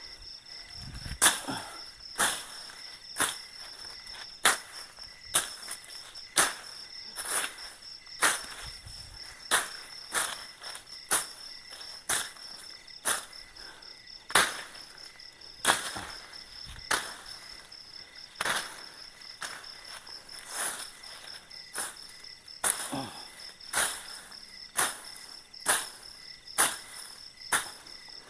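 Machete strokes chopping through forest undergrowth, a sharp cutting swish about once a second, over steady insect chirring.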